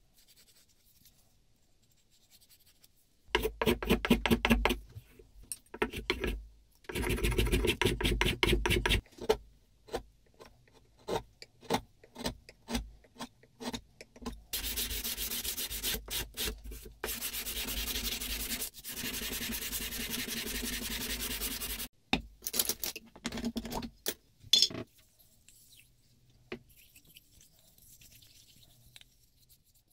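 Hand tools working the wooden body of a plane: two bursts of rapid scraping strokes, then scattered short scrapes, then several seconds of steady rubbing on the wood. A few more strokes follow, and the last few seconds are quiet.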